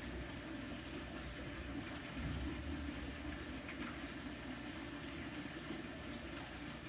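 Water running steadily in a fish aquarium: a continuous, even splashing and trickling from the tank's water circulation, with no breaks.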